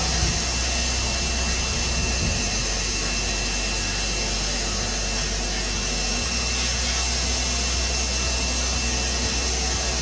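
Wet-and-dry vacuum running steadily, its hose held at a radiator valve to suck up the water draining from a central-heating system.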